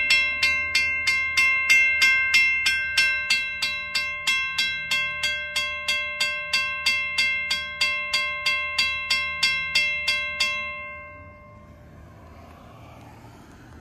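Railroad crossing signal bell, a WC Hayes, striking about three times a second with a clear ringing tone, the end of a crossing warning. The strokes stop about ten seconds in and the ring dies away, leaving faint traffic noise.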